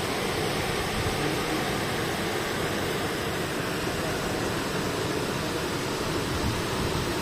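Waterfall rushing: a steady, even wash of falling water with no breaks.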